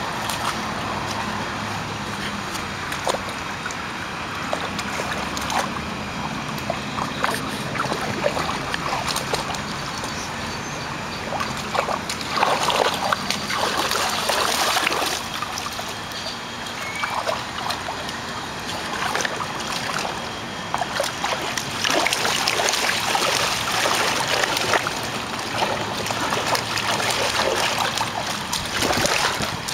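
A dog pawing and nosing at the water in a shallow inflatable kiddie pool: a steady run of small splashes and sloshes, busier about twelve seconds in and again through the last eight seconds.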